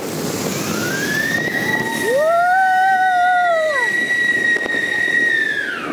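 Whistling fireworks. One shrill whistle rises to a steady pitch, holds for about four seconds and drops away near the end. A second, lower whistle rises about two seconds in and falls away about two seconds later.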